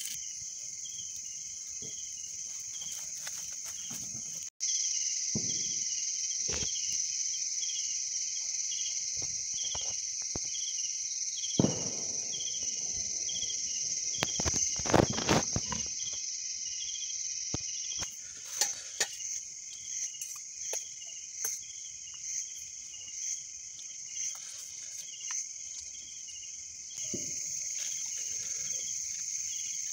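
Crickets chirping at night in a steady high-pitched trill, with a faster pulsing chirp beneath it. A few knocks and handling noises come near the middle.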